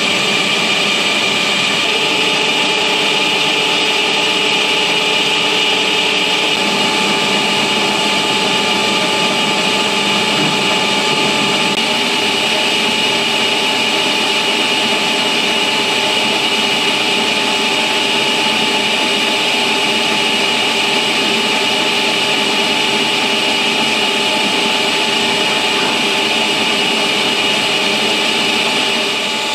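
Vertical boring mill running steadily while its tool machines the bore of a large metal ring, a continuous mechanical drone with a steady high whine over it.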